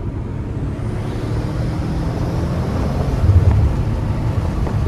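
BMW M5 F90's twin-turbo 4.4-litre V8, fitted with catless downpipes and aftermarket intakes, running while driving, heard from inside the cabin along with road and wind noise. It grows louder over the first few seconds and is loudest a little past halfway.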